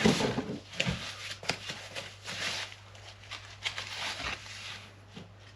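Packaging rustling with a few light clicks and knocks as motorcycle hand guards are unwrapped, over a steady low hum.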